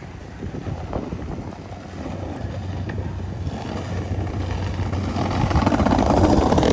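An engine passing close by, a low steady hum that grows louder toward the end and then fades.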